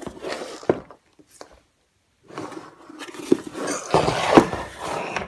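Rustling packaging and handling knocks as a 2 kW Planar diesel heater is lifted out of its box. There is a short burst at first, a pause, then a longer bout of rustling with a few sharp knocks toward the end.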